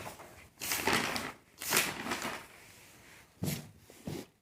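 Paper rustling and a pen scratching on paper, in four short bursts, as a sheet is handled and written on.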